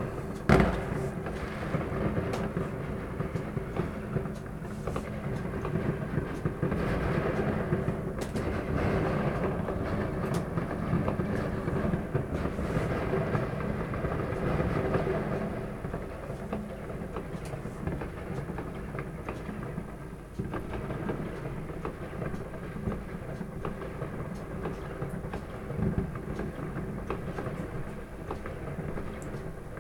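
Fireworks in the distance: one loud bang about half a second in, then scattered faint cracks and pops over a steady low rumble.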